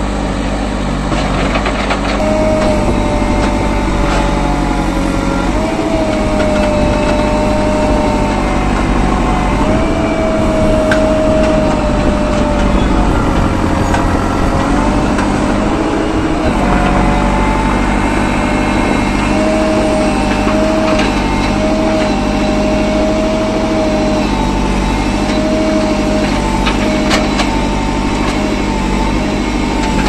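JCB backhoe loader's diesel engine running steadily, with a higher whine over it that wavers up and down in pitch.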